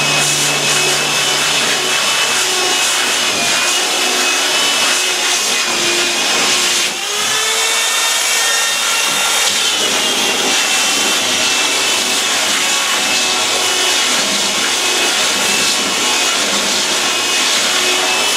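Electric sander with a dust-extraction hose grinding old epoxy laminate off a wooden boat hull. It runs as a steady gritty rasp, with a motor whine that sags and rises as the pressure on the hull changes; there is a brief dip about seven seconds in.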